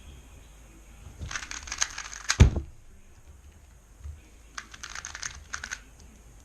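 A YJ MGC 2x2 V2 speedcube clicking as it is turned very fast for about a second, ending in one loud thump. A second burst of fast turning clicks follows about two seconds later.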